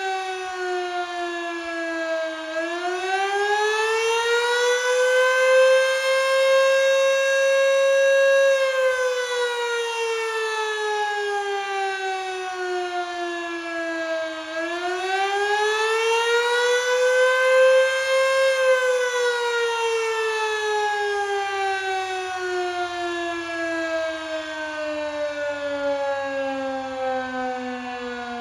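Federal Electric Dual Rotor Mach 5 outdoor warning siren sounding an attack wail. Its pitch slides up over several seconds and back down again twice, in cycles about 12 seconds long. The last fall drops lower than the others near the end.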